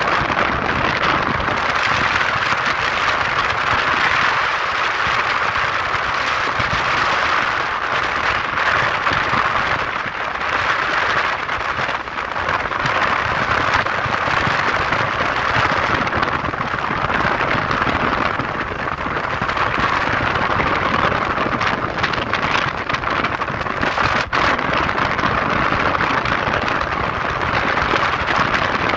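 Steady rush of wind and road noise from a moving vehicle, heard from its cab.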